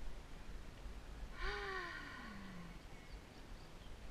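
A single breathy vocal sound, like a sigh, falling steadily in pitch over about a second, starting about a second and a half in. Faint bird chirps and low wind rumble in the background.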